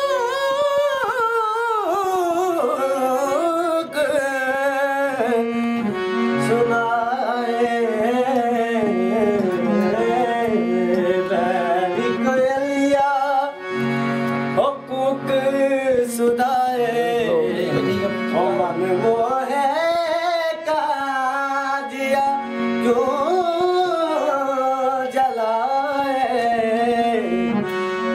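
Male vocalist singing a Hindustani thumri in long, ornamented phrases that glide and waver in pitch, over a steady drone.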